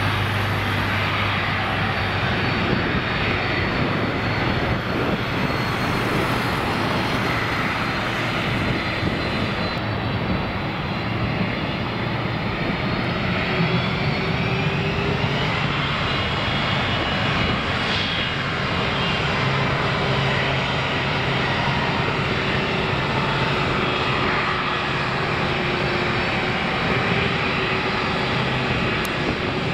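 Boeing 747-400 freighter's four jet engines running at low thrust as it taxis onto the runway: a steady rumble with a thin high whine that shifts in pitch about halfway through.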